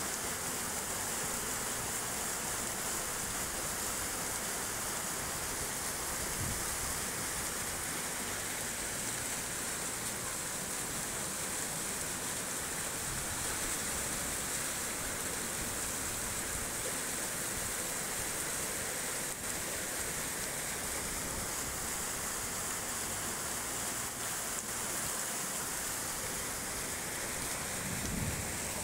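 Floodwater rushing down a street as a torrent, surging and splashing around a post in a steady, unbroken rush of water noise.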